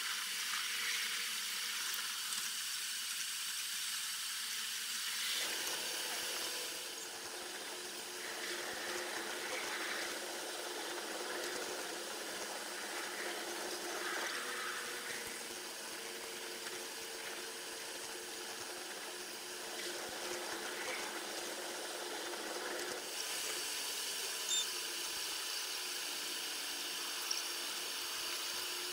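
Train running on the rails, recorded at the locomotive and played back ten times fast, so the running noise becomes a steady hiss with a few faint tones. About five seconds in, the sound grows fuller in its lower part.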